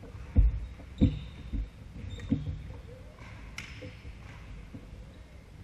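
Footsteps on a wooden gym floor: four dull thuds in the first two and a half seconds, with brief shoe squeaks and one sharp click about three and a half seconds in.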